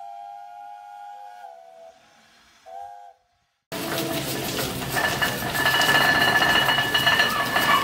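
A steam whistle sounds for the first three seconds: one long note that drops in pitch partway, then a short second blast. After a brief silence, a Green's of Wakefield economiser steam engine is heard running, a loud, dense mechanical noise with steam hiss and a couple of steady high tones.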